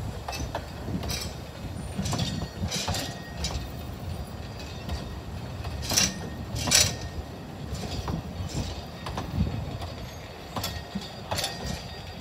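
Narrow-gauge train rolling slowly: a low rumble with irregular clicks and clunks of wheels over rail joints and pointwork. The two loudest clunks come close together about six seconds in.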